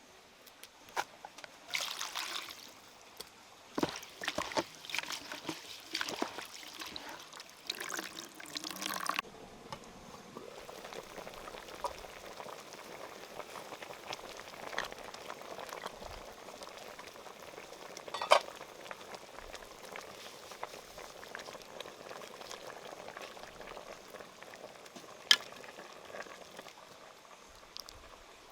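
Liquid being handled in cooking: for the first nine seconds, splashing and pouring broken up by knocks of a utensil. After that comes a steady bubbling hiss, with a few sharp clinks, the loudest about 18 and 25 seconds in.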